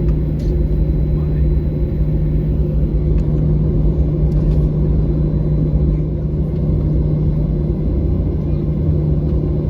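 Boeing 737-800 cabin noise while taxiing: the CFM56-7B engines running at low taxi power, heard as a loud, steady rumble with a steady low hum.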